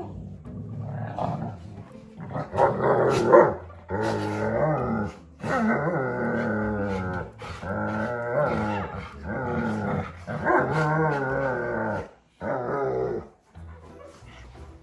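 Golden retrievers growling at each other as they play-fight, in a run of long, wavering growls that rise and fall in pitch. It goes quieter after about 13 seconds.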